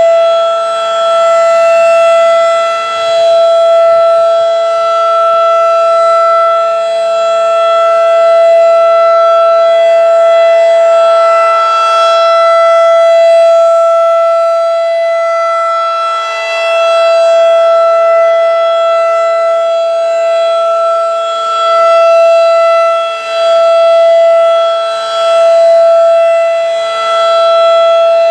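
Federal Signal 2001-DC rotating outdoor warning siren sounding its steady alert signal: one loud, unchanging pitch held throughout. The loudness swells and dips every several seconds as the rotating horn turns toward and away from the listener.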